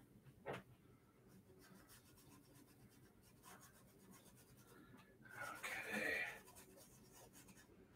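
Small paintbrush stroking acrylic paint onto a canvas: faint rubbing strokes, a light tap about half a second in, and a longer, louder scratchy stroke about five and a half seconds in.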